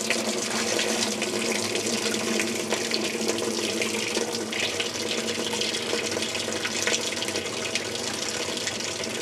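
Water running steadily into the tub of a Whirlpool Direct Drive top-load washer from its fill inlet as the machine fills, splashing through a cleaner sachet held in the stream.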